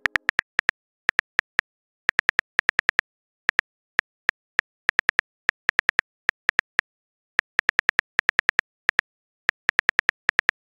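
Phone keyboard typing sound effect: short, sharp clicks in irregular runs of a few taps at a time, with brief pauses between runs.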